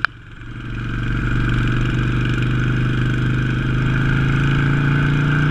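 Harley-Davidson V-twin motorcycle engine running under way, heard from the bike itself; it swells over the first second or so and its note climbs slowly, then holds steady.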